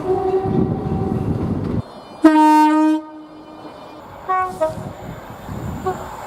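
A train's multi-note air horn chord sounding over the rumble of the passing train, cut off suddenly about two seconds in. Then a short, loud single-note horn blast lasting under a second, followed by a couple of brief, quieter horn toots.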